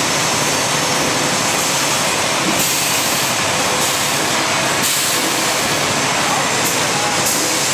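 Double-line PE bag making machine running: steady, loud machine noise with a faint hum.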